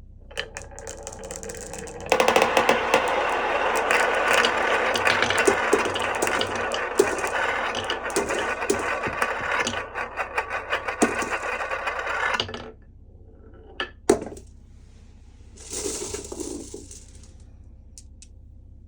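Glass marbles rolling and clattering down a wooden HABA marble run. A dense rattle full of clicks builds over the first two seconds, runs for about ten seconds and stops abruptly. A couple of sharp clicks follow, then a short rattle about sixteen seconds in.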